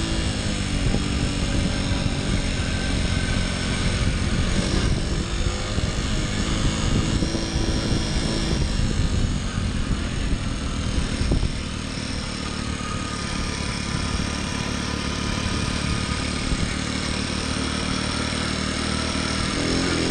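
Honda Little Cub's 50cc four-stroke single-cylinder engine running under way, with wind buffeting the microphone; a little quieter from about halfway through.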